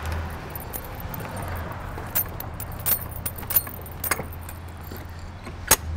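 Keys jingling and a handful of sharp metal clicks as the lock on an old bus's door is worked by hand, over a steady low rumble.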